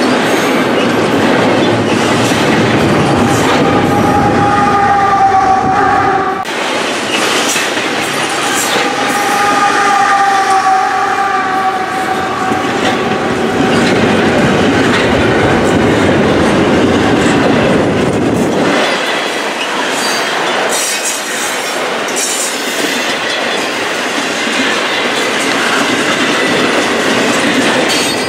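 Double-stack intermodal container well cars rolling past close by: a steady clatter and rumble of steel wheels on rail, with clicks from the rail joints. A high wheel squeal rises out of it about four seconds in and again from about eight to twelve seconds.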